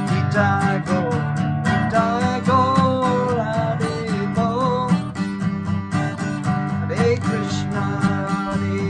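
Music: a strummed acoustic guitar keeping a steady rhythm, with a wavering melody line above it.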